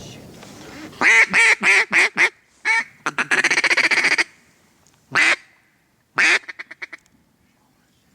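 Mallard duck call blown close by, sounding hen quacks: a descending string of about five quacks, a single quack, then a second or so of fast feed-call chatter, and two more single quacks, the last trailing into quick clucks.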